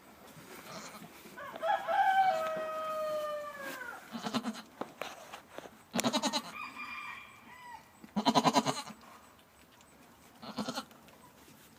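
A rooster crows once, a long call that falls in pitch at the end. Then a goat bleats several times in short, quavering calls.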